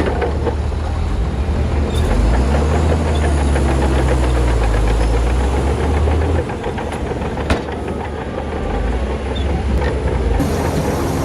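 Heavy diesel earthmoving machinery working: a deep engine drone that swells for a few seconds, eases about six seconds in, then builds again, with a single sharp clank a little after it eases.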